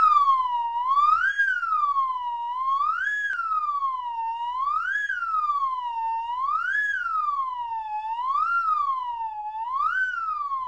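Slide whistle blown in one unbroken tone while its plunger is worked in and out, so the pitch swoops up and down about every two seconds, six times, each quick rise followed by a slower slide down.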